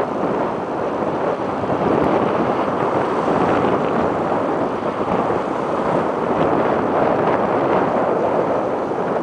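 Wind blowing across the microphone in a steady rush, over the wash of choppy water.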